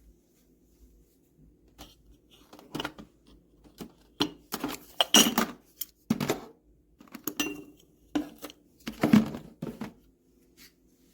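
Kitchenware being handled: a run of clinks and clattering knocks over several seconds, with a faint steady hum underneath.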